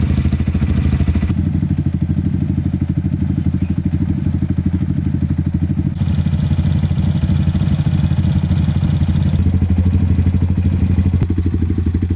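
KTM Duke 250 single-cylinder motorcycle engine idling steadily with an even, rapid pulse and no revving. Its tone shifts abruptly about a second in and again around six and nine seconds.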